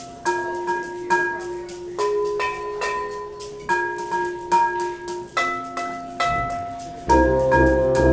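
Live chamber ensemble music: a line of single ringing notes with sharp attacks, about two a second, then about seven seconds in the fuller ensemble comes in louder, with low bass notes under it.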